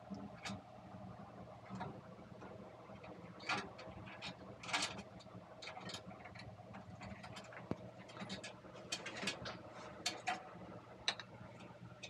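Small irregular clicks and scratches of hands twisting a wire end and handling the wiring inside an opened microwave's metal chassis, over a steady low hum.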